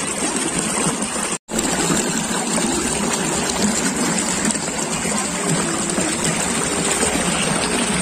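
Shallow water running and trickling over rock ledges of a rocky waterfall stream at its low, hot-season flow, a steady wash of noise. The sound drops out completely for an instant about a second and a half in.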